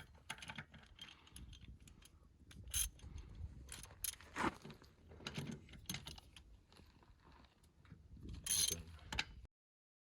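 Ratchet wrench clicking with sharp metal clanks as the Unimog's wheel nuts are worked off. The sound cuts off abruptly near the end.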